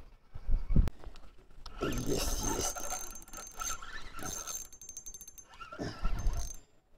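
Spinning reel being cranked, winding in line with a hooked pike on, its gears giving a thin whine that comes and goes, with a short run of fast clicks about two-thirds through.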